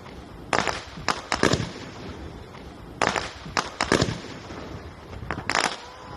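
Aerial firework shells bursting overhead: sharp bangs in three quick clusters of two or three, about every two and a half seconds.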